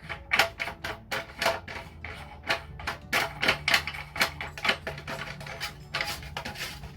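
Quick irregular clicking and rattling of plastic faucet parts as the plastic mounting nuts are threaded on and hand-tightened, several clicks a second, over background music.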